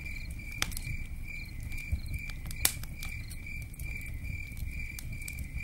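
Crickets chirping steadily, about three chirps a second, over the pops and crackle of a campfire. One louder pop comes near the middle.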